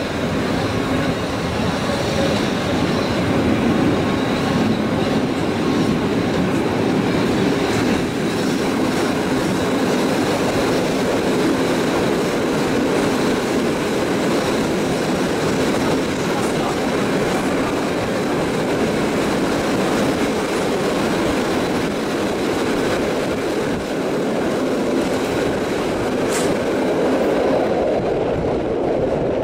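PKP Intercity TLK passenger train running on the rails, heard from aboard a coach: a steady rumble of wheels on track.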